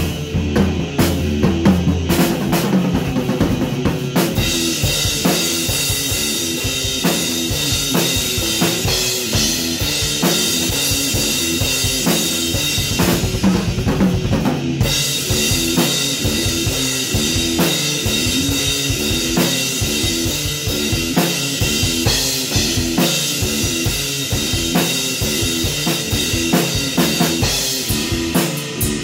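Rock jam: a drum kit playing a driving beat on bass drum, snare and cymbals, with an electric guitar riff played over it. The cymbals come in about four seconds in and drop out briefly around the middle.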